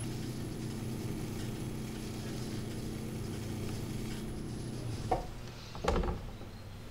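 Electric pottery wheel running with a steady low motor hum and a faint high whine that stops a little past halfway, as a rib is held against a spinning clay bowl. Two short knocks near the end.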